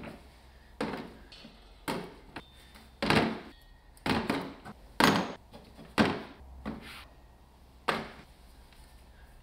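A series of about nine sharp knocks, roughly a second apart and uneven in strength, a few leaving a faint ring.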